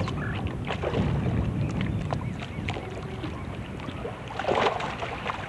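Wind on the microphone and water lapping at a bass boat's hull, with scattered small ticks, and a short splash about four and a half seconds in as a hooked bass thrashes at the surface beside the boat.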